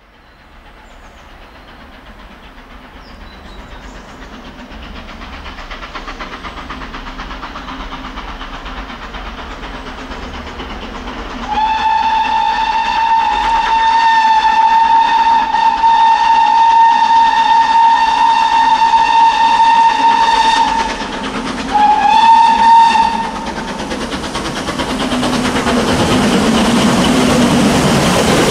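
GWR King class four-cylinder 4-6-0 steam locomotive No. 6024 King Edward I approaching at speed, its running noise growing steadily louder. About eleven seconds in it sounds one long whistle lasting nearly ten seconds, then a short second blast.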